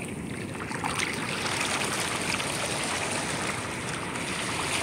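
Shallow ocean surf washing steadily, a little louder from about a second in.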